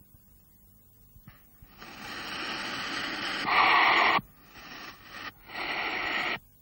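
Hissing sound effect from a cartoon soundtrack: after a quiet start it begins about two seconds in and grows louder, breaks off sharply, then returns as two shorter bursts of hiss.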